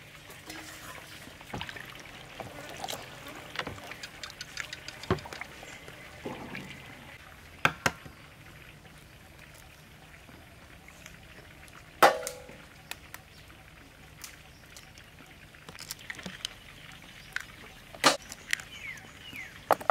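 Eggs cracked against the rim of a stainless steel mixing bowl: a few sharp taps spread out, the loudest about twelve seconds in with a short metallic ring from the bowl. Faint splashing of water is heard between them.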